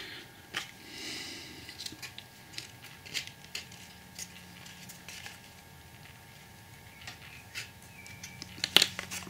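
Thin card being folded and pressed into a window cutout with a pencil and a small tool: soft rubbing and scraping of card with scattered small clicks and taps, and one sharper tap near the end.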